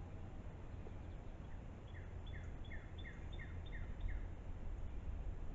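A songbird singing a quick series of about eight short, falling chirps, roughly three a second, over a low steady outdoor rumble.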